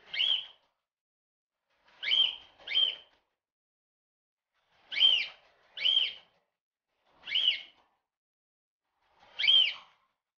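Cockatiel calling: seven short chirps that rise and fall in pitch, several coming in quick pairs, spaced a second or two apart.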